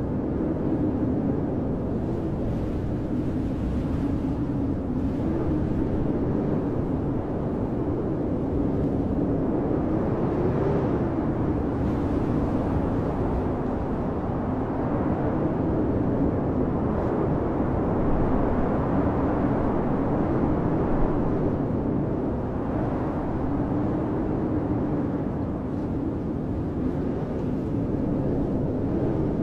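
Blizzard wind howling steadily: a deep, continuous rush with a low moaning pitch that wavers up and down and swells and eases every few seconds.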